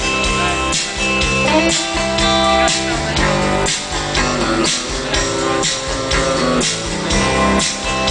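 Live band playing an instrumental passage, amplified through a concert sound system: electric bass, keyboard and guitar over a steady drum beat of about two hits a second.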